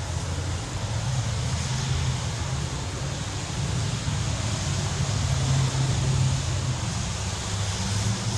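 Low, steady rumble of an approaching Amtrak electric train, mixed with wind noise on the microphone.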